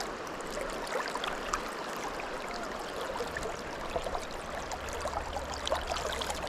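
Creek water running steadily, with many small gurgles and splashes.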